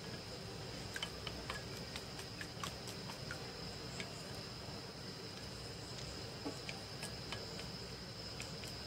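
Wooden chopsticks beating egg and water in a ceramic bowl, with light irregular clicks as the sticks knock the bowl. A steady high-pitched tone runs underneath.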